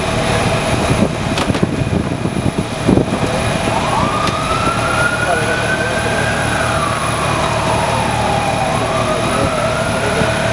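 Steady loud drone of running emergency-vehicle engines and rescue equipment. Over it, a siren wails, rising and falling slowly from about four seconds in and starting to rise again near the end. A couple of knocks sound in the first few seconds.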